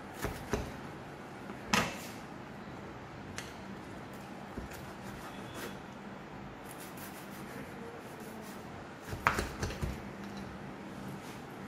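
Chef's knife cutting through toasted sandwich bread and knocking on a wooden cutting board: a few sharp knocks in the first two seconds, scattered lighter ticks, and a cluster of knocks near the end.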